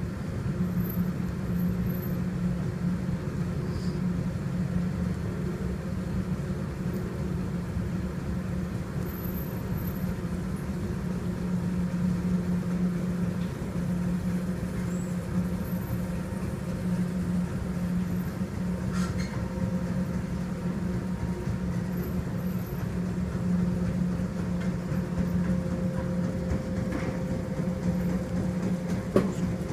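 Steady low hum of shipboard machinery with a rumble underneath and a fainter higher tone that grows stronger in the second half. A small knock sounds near the end.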